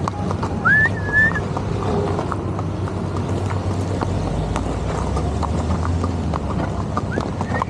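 Horse's hooves clip-clopping on asphalt at a steady walk, with a car driving past about four to six seconds in. A short whistle rises and holds near one second in.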